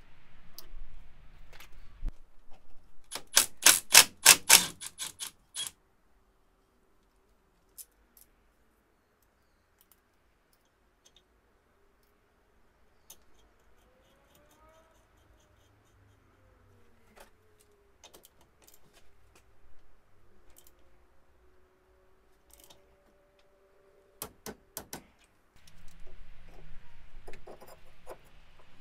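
Hand tools working on car brake parts: a fast, loud run of about fifteen sharp metallic clicks over two and a half seconds, like a ratchet being worked. Then long near silence with faint sliding tones, and a few more sharp clicks near the end.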